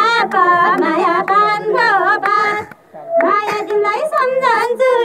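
Women's high voices singing a Nepali lok dohori folk song line close into a microphone, the melody wavering and ornamented, with a brief pause for breath a little over halfway through.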